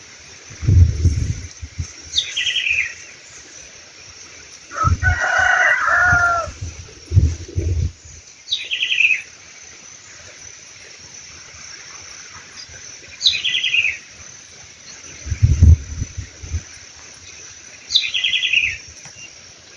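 A rooster crows once, about five seconds in. Between times a smaller bird gives a short, high, falling call four times, about every five seconds. A few low thumps are heard as well.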